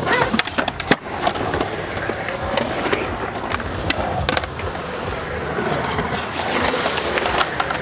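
Skateboard wheels rolling on concrete with a steady rumble. Sharp clacks of the board hitting the ground come in a cluster in the first second, with a few more later on.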